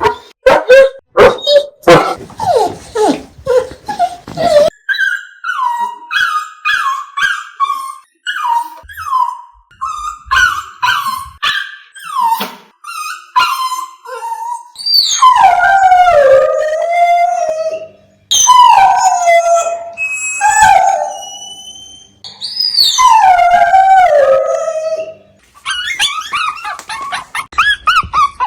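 Dogs whining and crying: a run of quick yelps, then many short high whines that drop in pitch, then three long cries of two to three seconds each, each sliding down in pitch.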